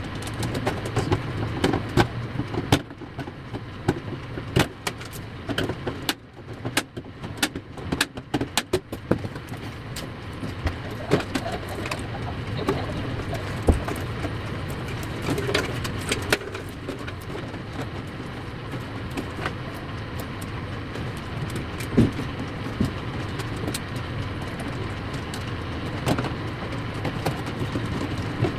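Sharp metal clicks, taps and knocks of computer parts being handled and fitted into a desktop PC case, many of them in the first ten seconds and scattered after, over a steady low background hum.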